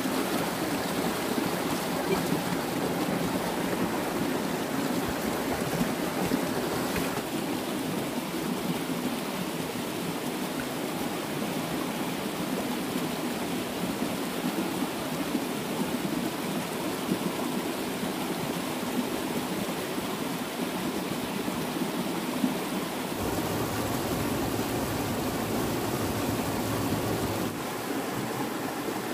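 Running water flowing steadily, a continuous even rush.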